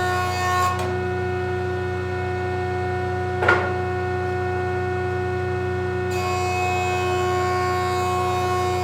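Benchtop jointer running steadily with a constant motor whine, cutting board edges square; the hiss of the cut drops away for a few seconds in the middle, and a single short knock comes about three and a half seconds in.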